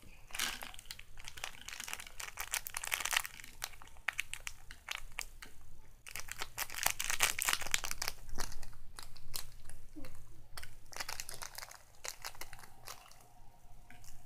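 Crinkly plastic packaging being handled and pulled open to take out miniature play-food toppings: irregular bursts of crackling and rustling.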